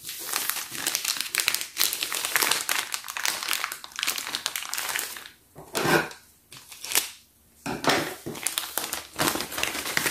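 Thin clear plastic bag crinkling as it is handled and pulled out, in short crackly spells with a couple of brief pauses.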